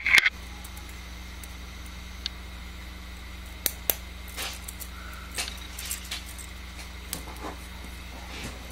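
Scattered light clicks and ticks of a steel needle holder and thin stainless wire as the wire is twisted into a loop by hand, over a steady low hum.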